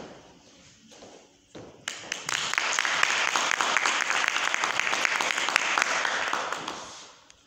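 Audience applauding, a dense patter of many hands that swells about two seconds in and dies away near the end.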